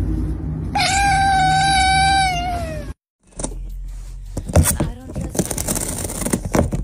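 A cat's single long meow, about two seconds, dropping in pitch as it ends. After a short break comes a cat chewing the edge of a cardboard box: irregular crunching clicks and scraping.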